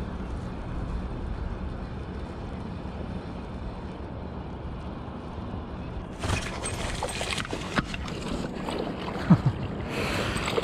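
Low steady wind and water noise. About six seconds in, a burst of splashing with sharp clicks and knocks begins as a pike thrashes at the surface right beside the kayak.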